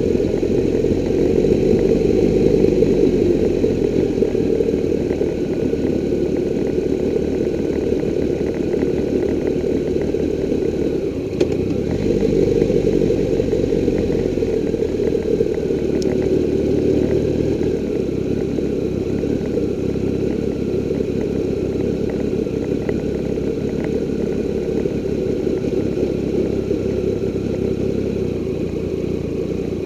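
Triumph Tiger 1200's three-cylinder engine running at low revs as the motorcycle rides slowly down a narrow lane: a steady low rumble.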